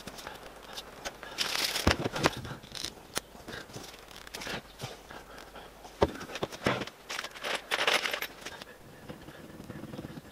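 Hand-handling noises on a workbench as two-part epoxy is applied to a bolt: rustling and scraping in two bursts, about a second and a half in and again around seven to eight seconds, with a few sharp clicks and knocks in between.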